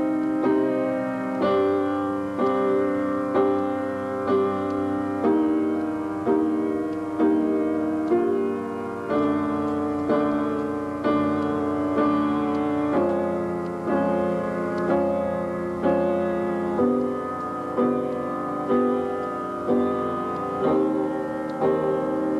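Instrumental music with no singing: a chord struck about once a second, each ringing and fading, the harmony moving from chord to chord.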